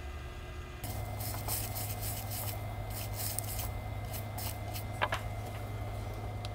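Cotton swab scrubbing across an iPhone logic board in a string of short, scratchy rubbing strokes, with one sharp click about five seconds in, over a steady low hum.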